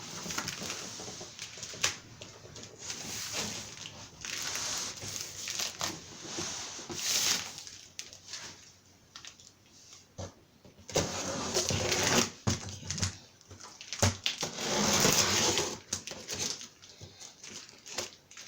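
Packaging of a grill kit being handled during unboxing: irregular rustling and scraping swells with scattered knocks and clicks as parts are moved about.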